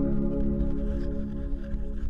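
Ambient electronic background music: a held synth chord slowly fading out at the end of a track.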